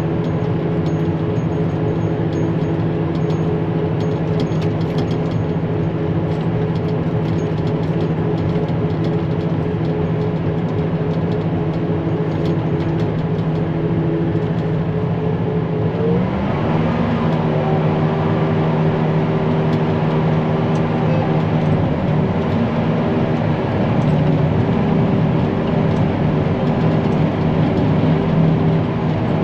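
Tractor engine running steadily under chopping load, with its pitch stepping slightly higher about 16 seconds in.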